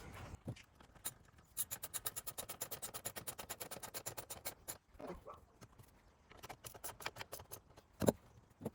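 Socket ratchet clicking rapidly, about ten clicks a second, as it tightens a bolt on the exhaust's frame bracket. After it come a few slower, irregular clicks and a single knock near the end.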